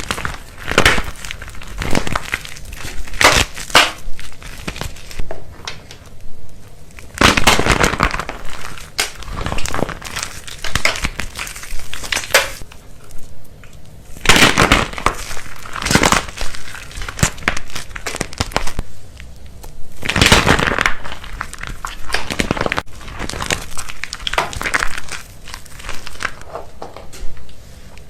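Dry soap crackling and crumbling as it is crushed, in irregular clusters of crisp crackles with short pauses between.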